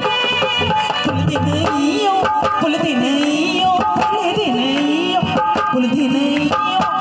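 Live devotional song (masih geet) over a loud PA: a woman singing a wavering melody over drum strokes and instrumental accompaniment.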